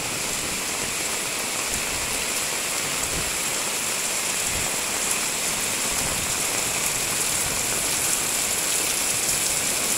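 Heavy rain pouring down steadily, a dense even noise that grows a little louder near the end.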